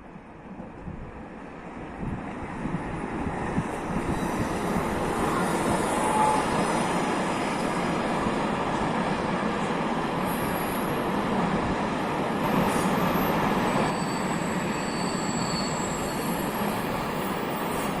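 Train rolling past on the rails: a dense rumble of wheels that builds over the first few seconds and then holds steady, with faint high wheel squeal near the end.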